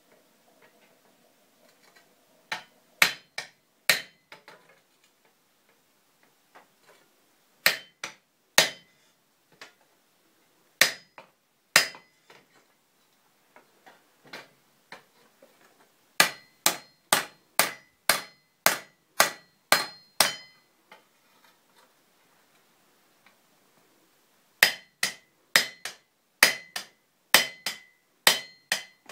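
Blacksmith's hammer striking a handled hot punch on glowing steel over the anvil, punching holes: a few spaced blows, then two runs of about two to three blows a second, each strike with a short metallic ring.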